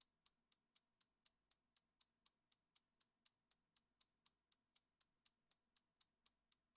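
Countdown-timer clock-ticking sound effect: short, sharp, high ticks at an even pace of about four a second, marking the time allowed to answer.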